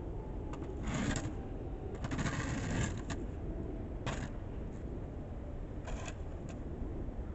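Snow shovel scraping along a paved sidewalk in four strokes, the longest about two seconds in, over a steady low rumble.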